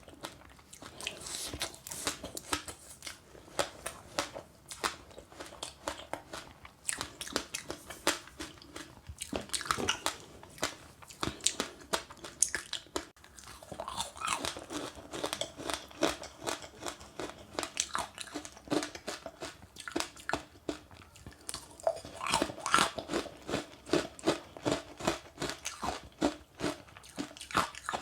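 Close-up chewing and crunching of passionfruit with sesame seeds: a rapid, irregular run of crisp crunches, busier about halfway through and again near the end.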